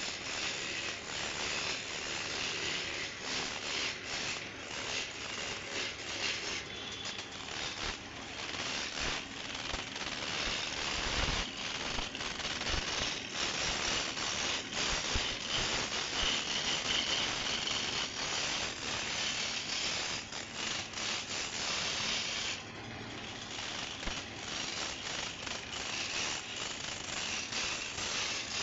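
Wood lathe running while a hand-held turning tool cuts the spinning wood: a continuous rough scraping, broken by many small clicks and knocks, with a brief drop near the end.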